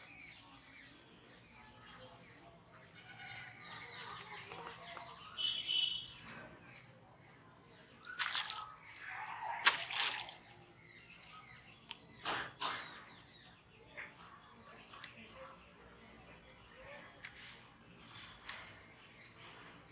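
Small birds chirping and twittering repeatedly, with a few louder, sharp noises near the middle.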